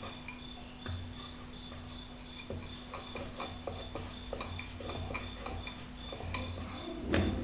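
Rolling pin rolling out soft naan dough on a wooden chapati board: light, irregular taps and rubbing, with a louder knock near the end. A faint steady hum sits underneath.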